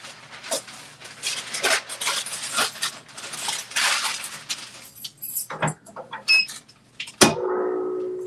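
Parchment paper and a canvas tote bag rustling and crinkling as they are laid out on a heat press, then the press lid clamped shut with a sharp clunk near the end, followed by a short fading tone.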